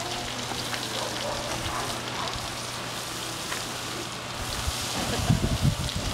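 Garden hose spraying water onto an elephant's hide, the water spattering onto the wet mat below as a steady rain-like hiss. A few low rumbles come near the end.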